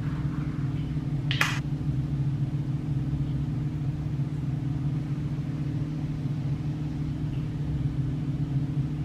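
Steady low hum of a bathroom ventilation fan in a small tiled room, with a brief soft hiss about a second and a half in.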